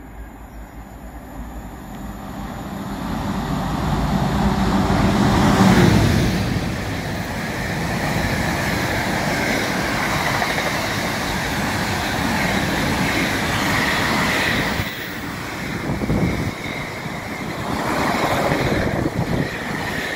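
Class 66 diesel locomotive passing at speed with a container freight train. The engine noise builds over the first few seconds and peaks about six seconds in as the locomotive goes by. After that comes the steady rumble and clatter of the container wagons on the rails, with a faint high whine.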